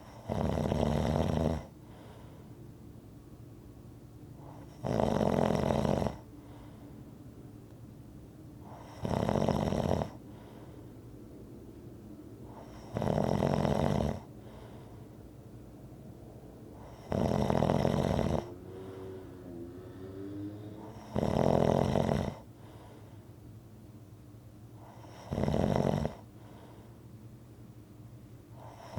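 Rhythmic snoring: seven loud snores, each about a second long, coming about once every four seconds, with quieter breathing noise between them. Between two snores near the middle there is a faint wavering tone.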